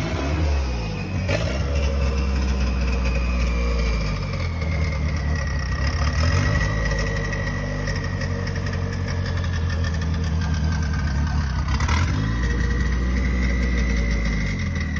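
Ford 2.3-litre turbocharged four-cylinder engine idling on its Microsquirt stand-alone ECU, exhausting through only a 2.5-inch downpipe with no muffler. Its note shifts briefly about a second in and again near the end, with a thin high whine over it that slowly falls in pitch.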